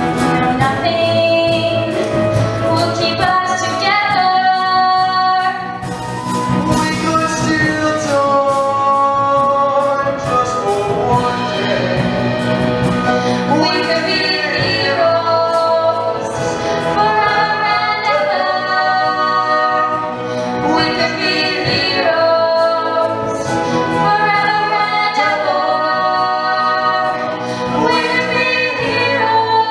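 Male and female voices singing a love-song medley duet through microphones over musical accompaniment, with long held and gliding sung notes.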